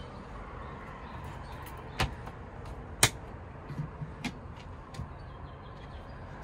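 The fridge and wooden cabinet doors of a 1968 Volkswagen Westfalia camper being handled. Two sharp knocks about two and three seconds in, the second the louder, are the fridge door being shut and latched. Lighter latch clicks follow as the upper cabinet door is unlatched and let down.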